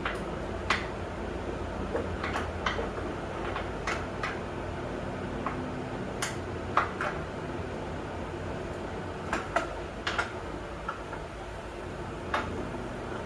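Scattered light metallic clinks and knocks from hand tools and bolt hardware being handled, about a dozen irregular strikes, over a steady low hum.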